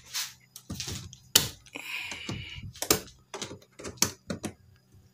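Long-nose pliers gripping and prying at the fasteners in the metal edging of a plywood crate: a string of irregular sharp metallic clicks and taps, with a brief scrape about two seconds in.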